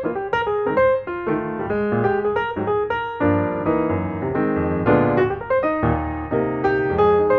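Background piano music, a quick run of notes with chords beneath.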